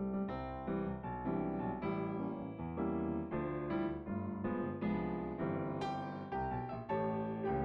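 Background music: a piano or electric piano playing a steady run of notes.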